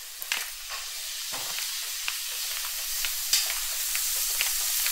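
Food frying in a pan: a steady sizzle with scattered small pops, growing louder.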